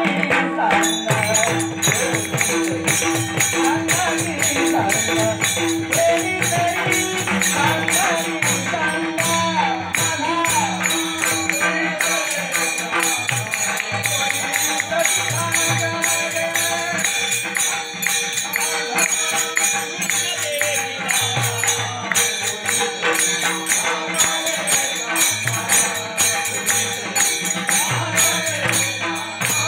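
Kirtan devotional music: a devotional song sung over sustained harmonium tones, with a fast, steady beat of small hand cymbals (taal) and drum.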